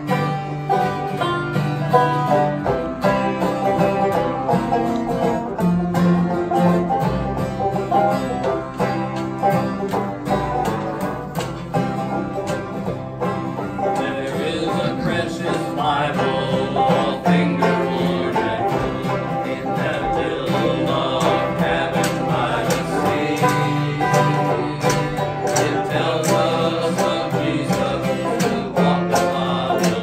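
Small acoustic band playing a bluegrass-style gospel song on strummed acoustic guitar and banjo, with men's voices singing; the sound fills out about halfway through.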